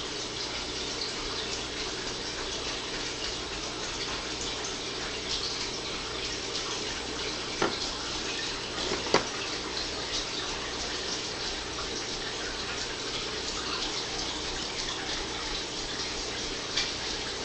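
A steady rushing hiss, like running water, with two sharp clicks about a second and a half apart a little past the middle and a fainter click near the end.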